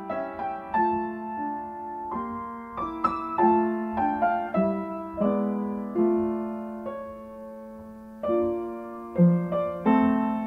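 Slow piano music: single notes and chords struck one after another and left to fade. It grows louder about nine seconds in.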